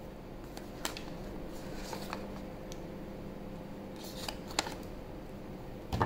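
Light handling of a cardboard flashlight box and its paper insert: a few small clicks and taps, the sharpest about a second in and a cluster around four to four and a half seconds in, over a faint steady hum.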